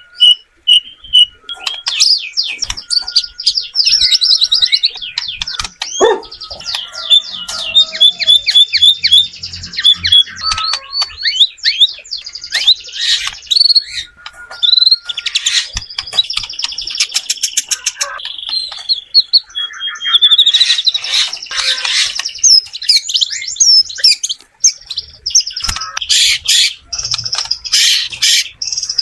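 White-rumped shama singing a long, varied song of fast whistled phrases, rapid trills and chattering note series, with almost no pause.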